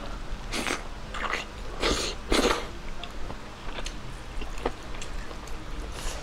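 Close-up mouth sounds of a person chewing a bite of chicken adobo with rice eaten by hand, with four louder bursts in the first two and a half seconds, then softer clicks.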